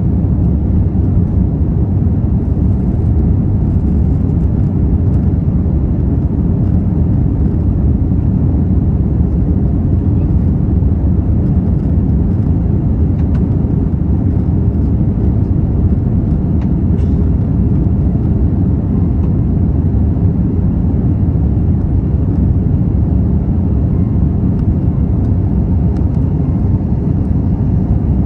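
Steady low roar of an airliner's jet engines and rushing air, heard inside the passenger cabin during the climb after takeoff.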